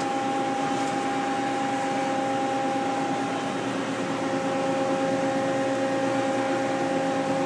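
1997 Mazak QT-20 CNC lathe running with a steady hum and an even high whine while its X axis is jogged in and out; the axis motion is quiet.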